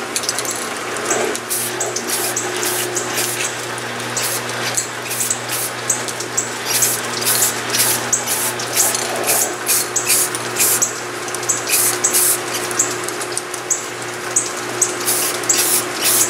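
Aerosol spray-paint can sprayed in many short hissing bursts, about one or two a second, as it coats a thin metal rod. A steady low hum runs underneath.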